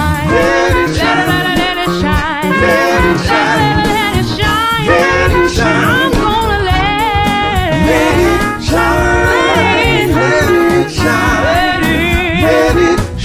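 Upbeat gospel-style music: a band playing under a singing voice whose pitch bends and wavers in runs.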